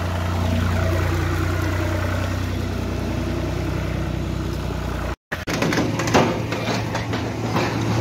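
A 1997 Nissan Pathfinder's V6 engine idling steadily. After a sudden cut about five seconds in, a different engine hum with scattered knocks and clatter.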